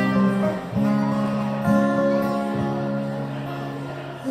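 Acoustic guitar chords opening a song, played live: two chords struck about a second apart, each left to ring and slowly fade.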